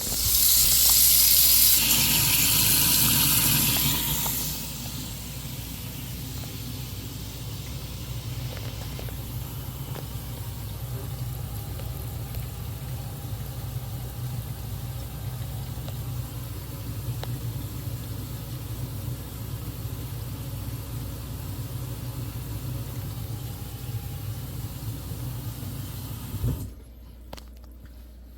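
Kitchen faucet running water for about the first four seconds, while a garbage disposal motor starts and runs steadily with a low hum for over twenty seconds, then is switched off near the end.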